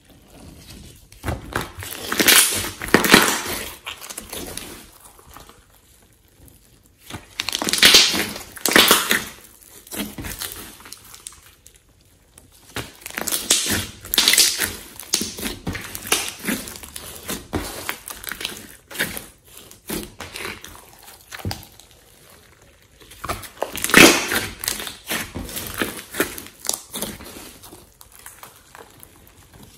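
A large lump of glossy slime mixed with clay being squeezed, folded and stretched by hand, making wet crackling and squishing sounds. It comes in louder bouts about two, eight, fourteen and twenty-four seconds in, with softer handling between.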